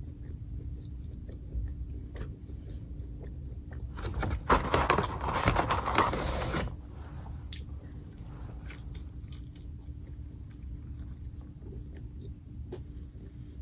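Close-up chewing and biting of McDonald's food, with small mouth clicks throughout. About four seconds in comes a louder, dense noisy stretch lasting nearly three seconds.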